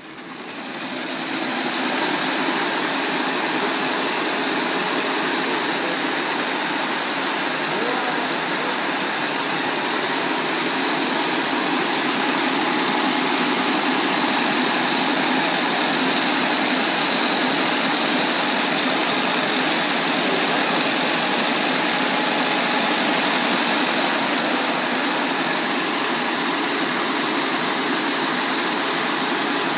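RA-16-4 high-speed braiding machine running, its bobbin carriers whirling around the track plate with a dense, steady mechanical noise. The noise builds over the first two seconds as the machine comes up to speed, then holds steady.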